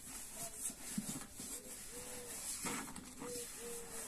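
Cloth rubbing and handling noise as the rubber seal and rim of a water pump's pressure vessel are wiped clean with thinners. A bird calls twice in the background, each time a short note followed by a longer one.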